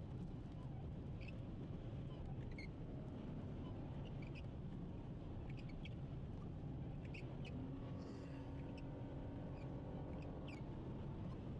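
Small birds chirping in short, high calls scattered through, over a steady low rumble. A steady hum comes in about eight seconds in and lasts a couple of seconds.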